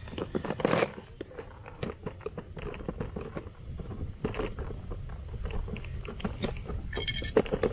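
Irregular small clicks and crinkling of hands handling fishing tackle while rigging a rod, over a steady low rumble of wind on the microphone.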